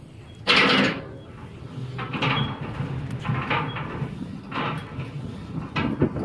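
Santa Maria-style drum grill's hand-cranked adjustable grate being lowered: the steel grate scrapes and rattles in the drum and the crank cable pays out. It comes in five short scraping bursts, about one a second, and the first is the loudest.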